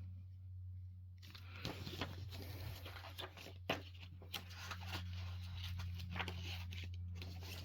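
Handling noise: irregular rustling with scattered clicks and taps of objects being moved close to the microphone, starting about a second in, over a steady low hum.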